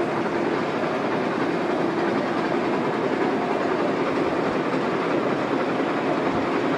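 CTC tea-processing machines running: a steady, dense mechanical clatter with a faint steady hum from the electric motors.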